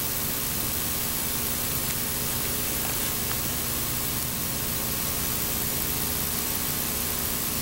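Steady, even hiss with a faint low hum beneath it: recording and tape noise, with no distinct sound event.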